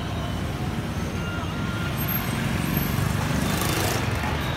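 Street traffic: motorbike engines running and passing, with a steady low rumble, one vehicle passing a little louder about three seconds in.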